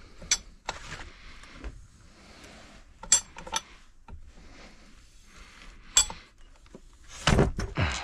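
Sharp metallic clinks and knocks of hand tools on a crank puller and scooter engine case as the crankshaft is drawn into the case: a few separate clinks, then a louder clatter near the end.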